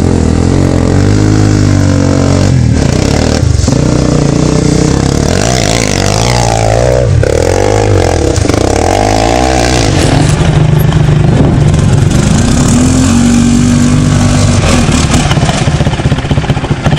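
ATV engines revving and accelerating, the pitch repeatedly rising and falling, then running hard under load from about halfway through.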